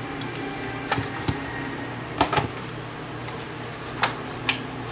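Clicks and light taps of a converter box's case cover being worked loose by hand, a handful of sharp clicks with the loudest about two and four seconds in, over a low steady hum.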